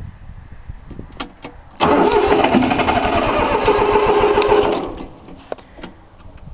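Three-cylinder Yanmar diesel engine being cranked by its starter for about three seconds, after a few clicks, and stopping without catching: it won't fire because the fuel lines were not bled after glow-plug preheating.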